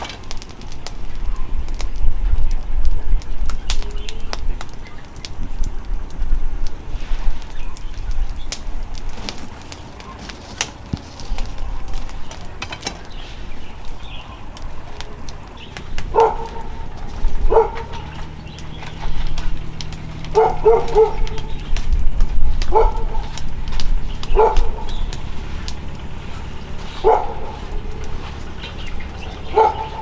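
A dog barking in short, separate barks, about eight of them through the second half, over a low rumble and scattered clicks.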